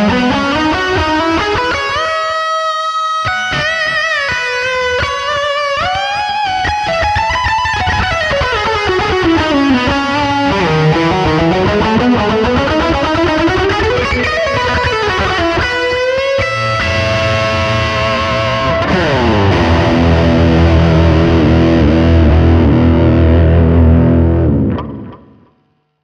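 Electric guitar played through a Demonfx King of Drive dual overdrive pedal, the notes overdriven, with long slides up and down in pitch. About two-thirds of the way in it settles on a held chord that rings for several seconds, then dies away quickly near the end.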